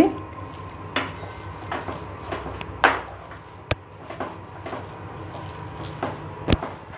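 A spatula working through a mashed potato and shredded chicken mixture in a nonstick pan, scraping and knocking against the pan, with two sharp knocks about halfway and near the end.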